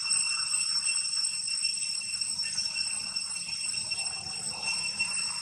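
Steady, high-pitched drone of insects, an unbroken even tone with fainter higher tones above it.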